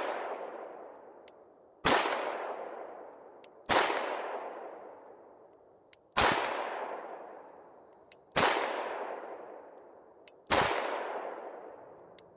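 A CZ-52 pistol firing 7.62×25mm Tokarev rounds in slow, steady single shots, five of them about two seconds apart. Each shot rings out and fades away over about two seconds.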